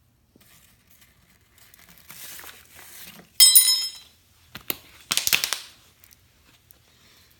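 Paper funnel rustling as baking soda is poured through it into a thin plastic water bottle of vinegar. A short, high squeak comes about halfway through as the funnel is pulled from the bottle's neck. Then the thin plastic bottle crinkles loudly as it is gripped and the cap is screwed on.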